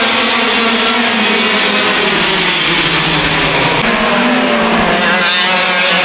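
A pack of 100cc two-stroke racing kart engines running hard at high revs. Several engines sound at once, their pitches rising and falling as the karts pass and change speed.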